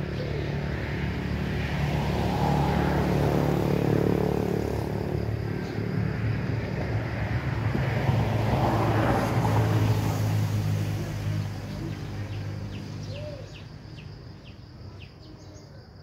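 Engine drone of passing motor vehicles, swelling twice and then fading away. Small birds chirp briefly near the end.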